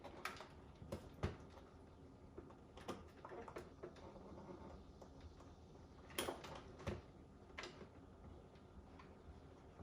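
Faint, scattered clicks and taps of small plastic dispenser parts being handled and fitted, about eight sharp ticks spread irregularly.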